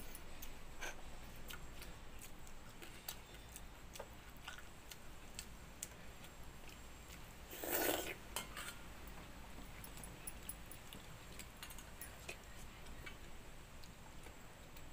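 Someone eating watered rice by hand from a steel bowl: faint scattered clinks of fingers and bangles against the steel and small wet mouth sounds, with one louder, brief noisy sound about eight seconds in.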